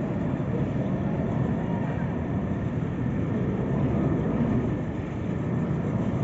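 Steady low rumble of a formation of display jets flying at a distance.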